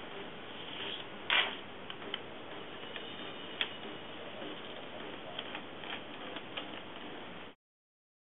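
Light clicks and taps with a short paper rustle about a second in, as a cat paws at paper on a fax machine, over a steady hiss; everything stops abruptly near the end.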